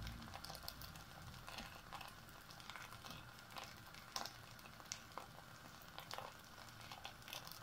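Faint sizzling and crackling of rice cooking in a pot with little water left, nearly done, with scattered small pops.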